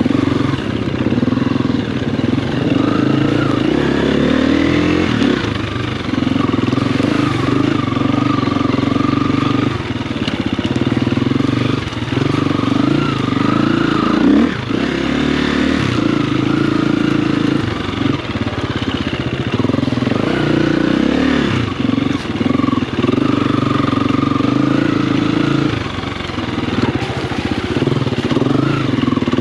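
Motocross dirt bike engine running hard around a track, its pitch rising and falling repeatedly as the rider works the throttle and gears.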